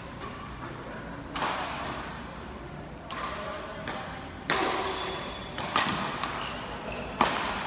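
Badminton rackets striking a shuttlecock: four sharp smacks, the last three about a second and a half apart as a rally gets going, each ringing briefly in the echo of a large hall.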